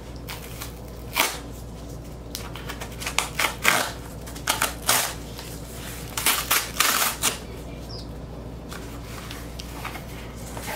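Cardboard record mailer being torn open by its tear strip, with the box flaps handled: irregular bursts of ripping and scraping cardboard, loudest about six to seven seconds in.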